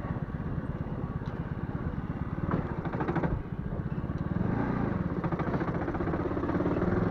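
Small moped engine running with a rapid, even pulsing; it dips briefly a little over three seconds in, then picks up revs slightly.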